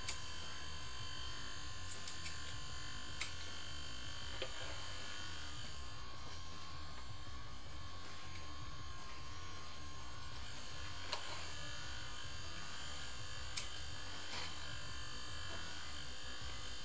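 Small 12 V inflatable-boat air pump running with a steady electric buzz, feeding air into a homemade water-electrolysis rig. A few short sharp clicks come and go over it.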